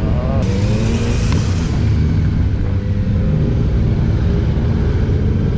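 Royal Enfield Interceptor 650 parallel-twin engine running steadily under way, heard from the rider's seat, mixed with the engines of the superbikes riding just ahead. A brief rushing noise rises about half a second in and fades by two seconds.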